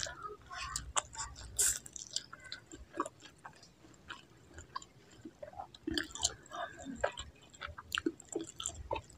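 Close-miked eating of spicy instant noodles: a mouthful slurped in and chewed, with wet smacking mouth sounds and many small clicks.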